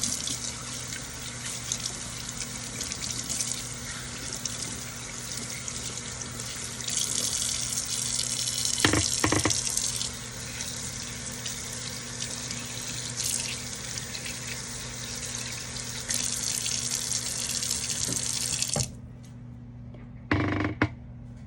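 Kitchen tap running into a sink as produce is rinsed under it, the splashing louder at two stretches, with a couple of knocks partway through. The water shuts off about three-quarters of the way through, followed by a short knock.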